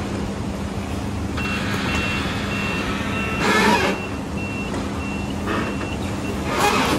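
A large forklift's reversing alarm beeping, a single high tone about twice a second as it backs away, over a steady low hum, with two short bursts of noise, one midway and one near the end.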